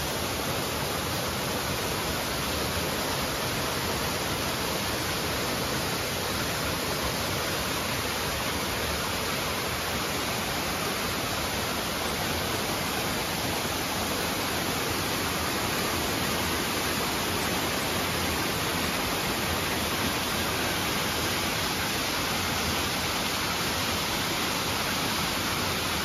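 Small creek waterfall, water cascading over rock in a steady, unchanging rush.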